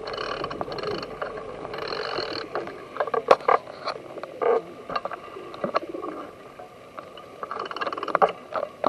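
A flock of feral pigeons feeding close by, with low cooing and scattered sharp clicks and taps.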